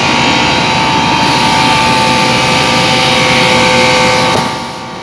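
Air-conditioner outdoor unit running, its compressor and condenser fan motor going together: a steady rushing noise with a few steady hums. It dips briefly near the end. The compressor is running on continuously, not cutting out, with the contactor pulled in.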